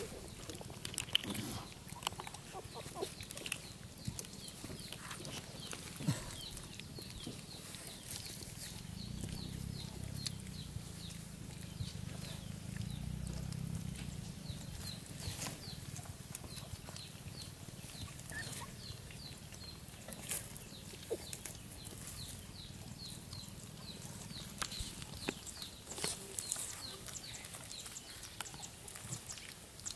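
Puppies scrabbling and shuffling through dry leaves and twigs, giving scattered rustles and light clicks. A faint high chirp repeats a few times a second through the middle and later part.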